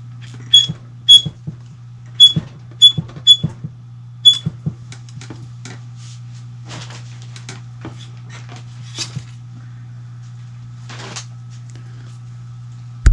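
Cleaning rod with a nylon bore brush being worked back and forth through a rifle barrel: six sharp, ringing metal clinks in the first few seconds, then quieter scraping and light knocks. A steady low hum runs underneath, and there is a single thump at the very end.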